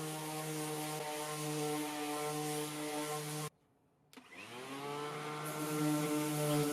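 Cordless electric sander running steadily on a wooden box, sanding it down; it cuts out abruptly about halfway through, then spins back up with a rising whine to full speed.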